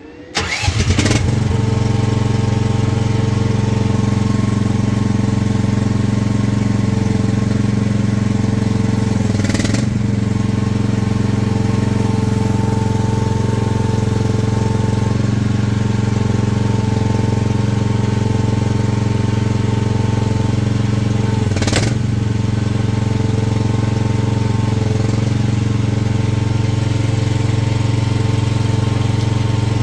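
Mach Pro MP15 mini excavator's engine starting and then running steadily, driving the hydraulic pump while the newly fitted hydraulic thumb is tested. Two short sharp sounds come about ten and twenty-two seconds in.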